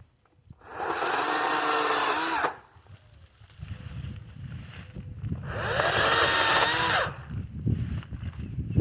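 Kobalt 40V Max cordless electric chainsaw cutting limbs off a cedar in two bursts of about two seconds each. The motor's pitch sags and bends as the chain bites into the wood.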